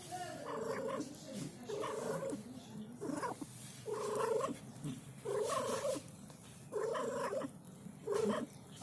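A cat crying in short, evenly repeated calls, about seven of them at a little over one a second, beside a mother cat and her newborn kittens.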